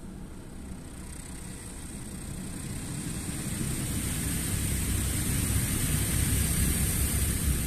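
Automatic tunnel car wash spraying water and foam over the car, heard from inside the cabin: a steady hiss over a low rumble that grows gradually louder.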